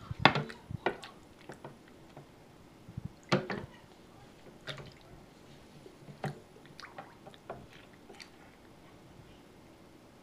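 Water splashing and sloshing in a steel cooking pot as a monkey paddles its hands and a large toy hatching egg in it: irregular splashes and knocks, the loudest about a quarter second in and again about three seconds in, tailing off near the end.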